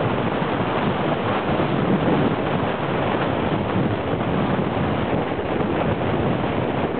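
Wind rushing over the microphone of a camera on a moving bicycle, a steady, loud buffeting noise.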